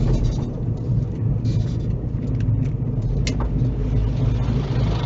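Car engine and road noise heard from inside the cabin while driving slowly, a steady low rumble. A brief click about three seconds in.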